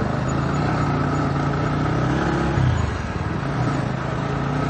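Bajaj Pulsar NS160's single-cylinder engine running as the motorcycle pulls off onto the road, heard from on the bike; its note changes about two and a half seconds in.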